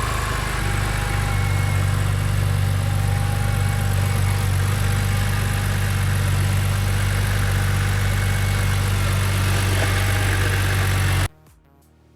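BMW X3's N52 3.0-litre straight-six engine idling steadily and smoothly, its rough idle cured by a new crankcase-vent Y hose on the intake manifold. The sound cuts off suddenly near the end.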